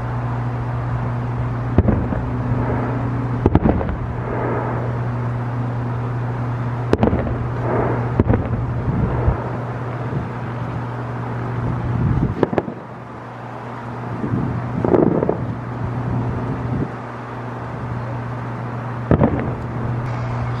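Distant fireworks bursting: a string of booms every few seconds, some followed by crackling, over a steady low hum.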